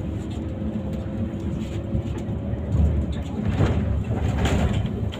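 City bus running, heard from inside the cabin: a steady low engine and road rumble with a faint whine over the first couple of seconds and a few short rattles in the second half.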